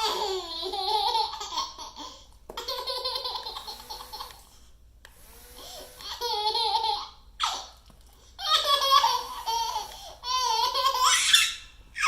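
A baby laughing hard in about six high-pitched bursts, with short breaths between them.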